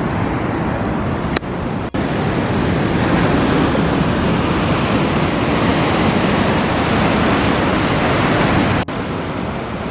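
Ocean surf washing onto the shore, a steady loud rushing hiss, briefly cut off three times.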